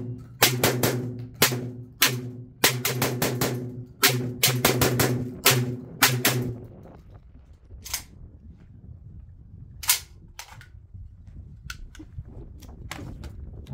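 SDS Imports Tokarev TT12 semi-automatic 12-gauge shotgun firing a fast string of shots from a 20-round stick magazine, several shots a second. The magazine holds mixed shells of different brands and speeds, and the gun cycles each one. The string stops about seven seconds in, and a few scattered single reports follow.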